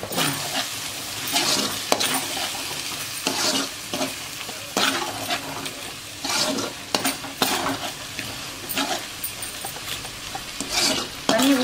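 A perforated metal spatula stirring and scraping prawn and drumstick thokku around a kadai of hot oil, with repeated scraping strokes about once a second over a steady sizzle. The freshly added chilli powder is being fried into the masala in the oil, without water.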